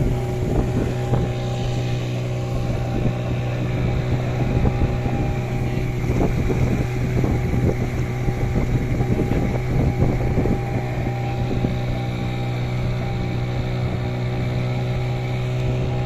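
Speedboat outboard engine running at a steady cruising speed with a constant drone, with wind buffeting the microphone.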